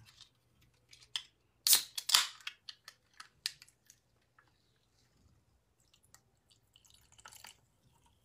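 A scattered string of sharp clicks and taps from something handled close to the microphone, the two loudest about two seconds in.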